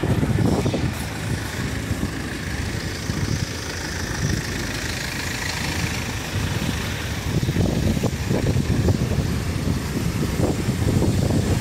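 Queued cars and vans idling in the road, mixed with wind buffeting the microphone. The buffeting comes in uneven gusts that grow stronger in the second half.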